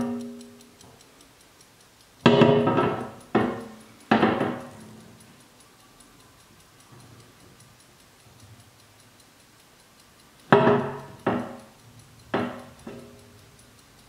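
Le Castel St Aubin mantel clock's bell chime striking, each note ringing out and fading: three strikes about two seconds in, then four more near the end, the last one softer. The movement ticks faintly and steadily between them.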